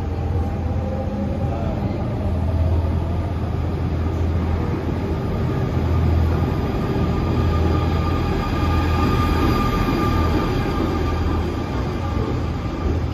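Double-deck Z2N RER commuter train pulling into an underground platform: a steady low rumble of wheels and traction motors with a faint high whine. It grows louder as the cars pass close by.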